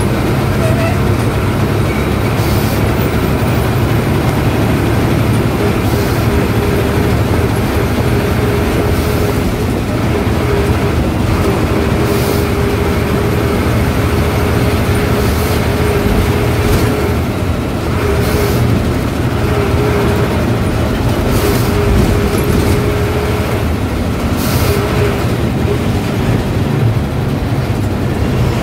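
Ashok Leyland diesel bus engine running steadily at cruising speed, heard from inside the driver's cabin with road noise. Over it runs a faint wavering whine, and short hisses come every two to three seconds.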